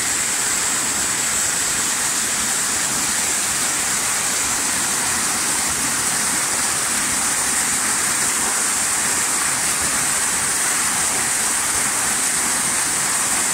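Small waterfall on a headwater stream, water splashing steadily over rocks as an even rushing hiss.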